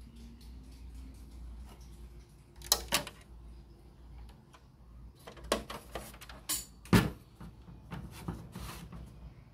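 Handling noise: several sharp clicks and knocks, with light rubbing between them, over a steady low hum.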